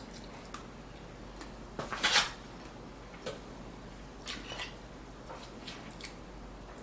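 Close-miked eating sounds: scattered soft clicks and smacks of a person chewing and handling food, with one louder, slightly longer noise about two seconds in.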